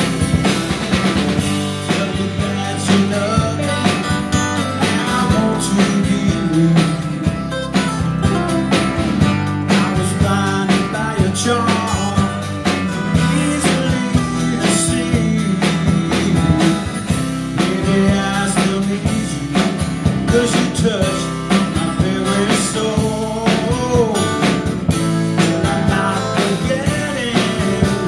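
Live band playing a song: two acoustic guitars strummed, a bass guitar and a drum kit keeping a steady beat, and a man singing lead into a microphone.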